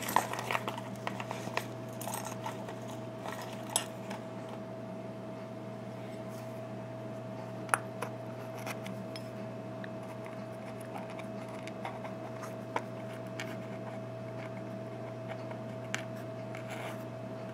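Small metal clicks and taps of brass lock pins and steel tools being handled and set down while a padlock cylinder is taken apart. A cluster of clicks in the first few seconds, then a few scattered single clicks over a steady low hum.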